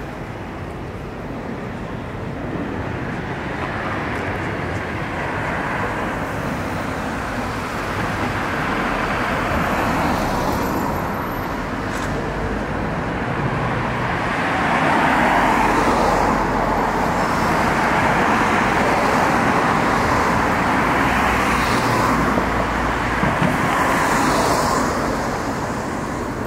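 Road traffic on a city street: a steady hum of cars with several vehicles passing, their tyre and engine noise swelling and fading.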